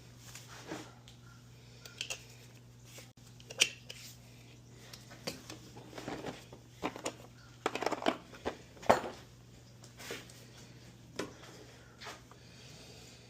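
Scattered clicks, taps and knocks of hand tools and small metal parts being handled while setting up a compression test on a Craftsman mower engine, busiest in the middle, over a steady low hum.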